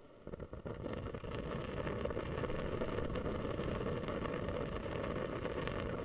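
Humidifier bubbling: dense, crackling water bubbles that start about a third of a second in, swell over the first two seconds, then keep up steadily.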